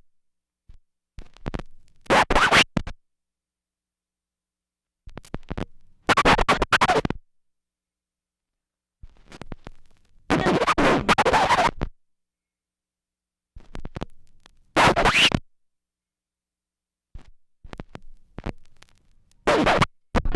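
A series of vinyl record scratch sound effects, five separate bursts of hand-scratched vinyl with silence between them, one about every four seconds. The burst about ten seconds in is the longest.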